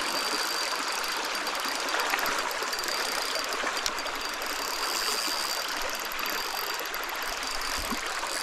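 Steady rush of flowing stream water, even and unbroken.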